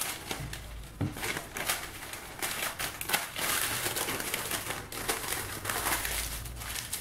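Parchment paper rustling and crinkling as hands roll it tightly around a log of chocolate salami, in uneven crackles that get busier partway through.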